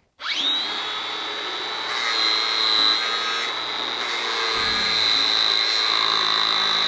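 Makita X-Lock cordless angle grinder spinning up with a quick rising whine, then running at a steady high whine as its wheel grinds a steel tube, with a continuous gritty grinding noise.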